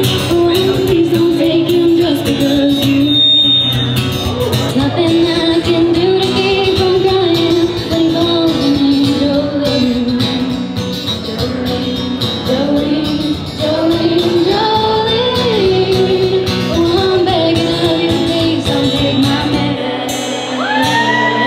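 Live band music: a woman singing the melody over strummed acoustic guitar and a steady percussive beat.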